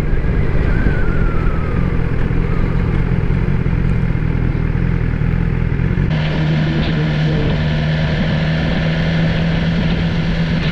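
BMW S1000XR motorcycle's inline-four engine running at low revs while the bike rolls along, with wind and road noise. About six seconds in, the sound changes abruptly to a steadier, more even engine hum with more hiss.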